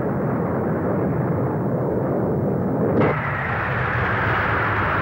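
Jet fighter engine noise in flight: a loud, steady rushing sound that turns brighter and hissier about three seconds in.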